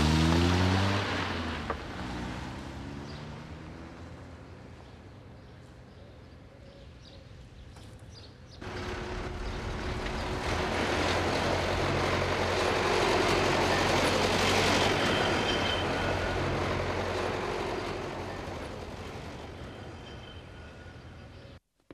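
Car engine accelerating away, its pitch rising twice as it shifts up, then fading. About eight seconds in, a vehicle's running noise cuts in, swells and dies away again, ending abruptly near the end.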